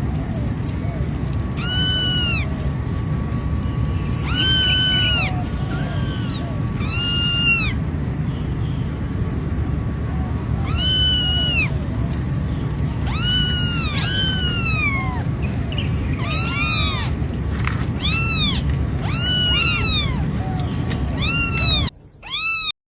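A cat meowing over and over: short, high-pitched, arching meows, more frequent in the second half, over a steady low rumble. The sound cuts off suddenly near the end.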